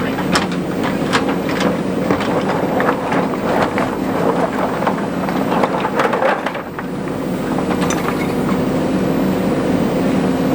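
Diesel engine of a JCB 3DX backhoe loader running steadily, with frequent sharp clanks and rattles for the first seven seconds or so, then a short dip and steadier running.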